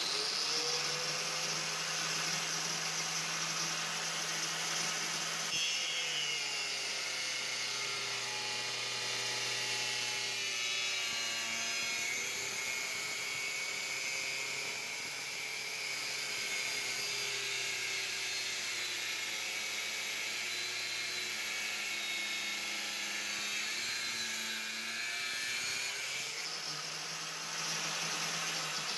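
Angle grinder with an abrasive cut-off disc, mounted in a chop stand, spinning up and then cutting through a metal channel. Its whine drops in pitch as the disc bites into the metal and stays low for about twenty seconds under load. Near the end it rises again as the cut finishes and the disc runs free.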